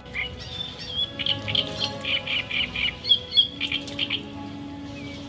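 Small birds chirping and twittering in quick repeated notes over soft, sustained background music.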